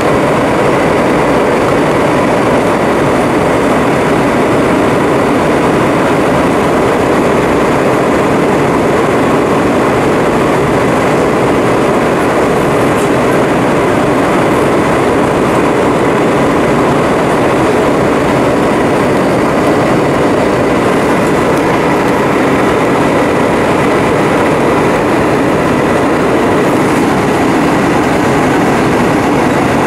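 Steady cabin noise of a JetBlue Airbus A320 in flight, heard from a window seat beside its IAE V2500 turbofan: an even rush of engine and airflow with a faint steady whine on top.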